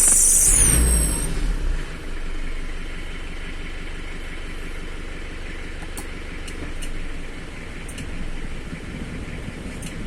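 Isuzu Panther engine revved once: a loud rev with a high-pitched whistle that falls in pitch as the revs drop in the first two seconds, then the engine idles steadily. The whistle is the strange noise the owner hears when pressing the throttle with the AC off, and its cause is not yet known.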